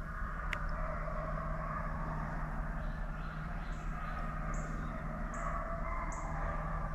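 A small bird giving short, high chirps about once a second over a steady outdoor hum, with one sharp click shortly after the start.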